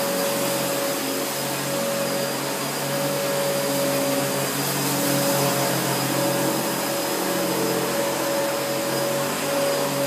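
Two upright vacuum cleaners, a 1984 Hoover U7008 and a 2001 Panasonic Icon, running together while being pushed over carpet. Their motors make a steady whir with a few held whining tones.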